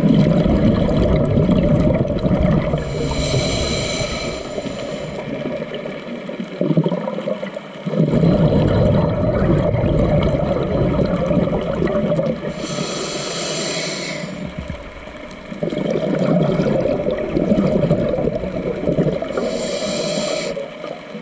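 Scuba diver breathing through a regulator underwater: long bubbling rumbles of exhaled air alternate with three short hissing breaths, about every six to eight seconds.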